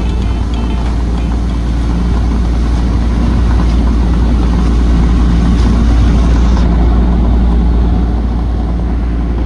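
Small motorboat's engine running at a steady speed, with a constant low rumble.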